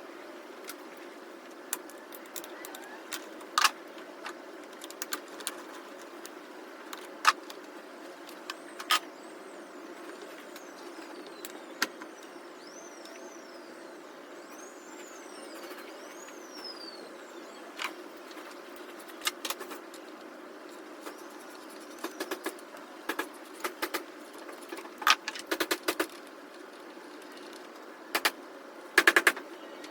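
Sharp metallic clicks and clinks of hand tools on bolts, scattered at first and coming in quick clusters in the second half, over a steady low hum.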